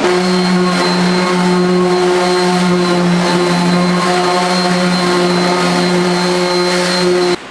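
Handheld electric sander running steadily at full speed on the wooden bench top: an even motor hum that cuts off suddenly near the end.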